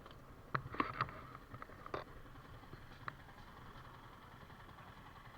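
Faint motorcycle engine running at idle, with several sharp clicks or knocks about half a second to a second in and again near two seconds.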